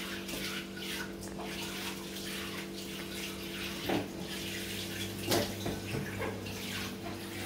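Kitchen tap running into a sink as things are rinsed by hand, with a few light knocks about four, five and six seconds in. A steady hum sits underneath.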